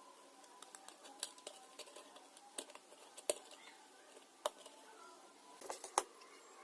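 Irregular light clicks and taps, several louder ones a second or so apart.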